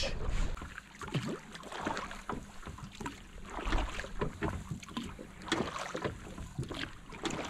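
A sailing canoe being rowed into the wind with the sail still set: a run of irregular small knocks from the oars working in their oarlocks, with water splashing and some wind noise.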